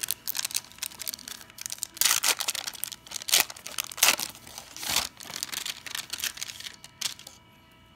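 Foil wrapper of a 1993 Upper Deck baseball card pack being torn open and crinkled as the stack of cards is pulled out: a run of sharp crinkling bursts that stops about seven seconds in.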